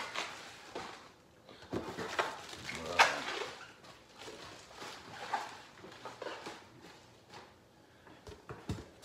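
Clear plastic bubble-wrap packing being handled, with irregular rustling and crinkling and one sharp snap about three seconds in.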